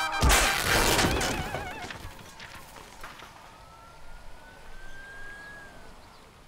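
Music cut off by a sudden loud crash, followed by a warbling police-style siren that fades. A fainter siren wail then rises slowly and drops away near the end, as the sound dies down.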